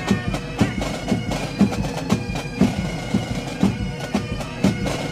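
Marching music from a parade band: steady held tones over a drum beat of about two beats a second.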